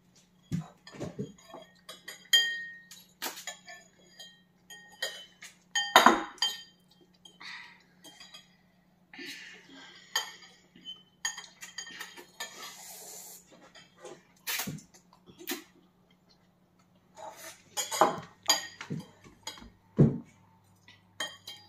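Forks and spoons clinking and scraping against ceramic bowls while noodles are eaten, in short sharp clinks scattered throughout, with a few stretches of slurping.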